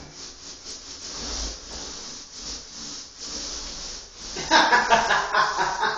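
Paint roller rolling on a wall in repeated back-and-forth strokes, a rhythmic sticky hiss about twice a second. About four and a half seconds in, a much louder pitched sound takes over.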